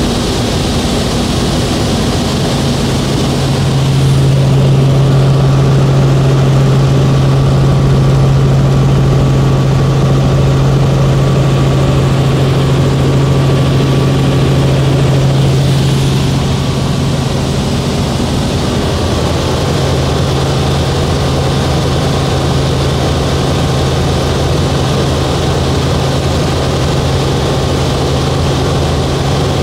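Helicopter engine and rotor heard from inside the cabin in flight: a loud, steady low drone. It grows louder about four seconds in and eases back a little around sixteen seconds.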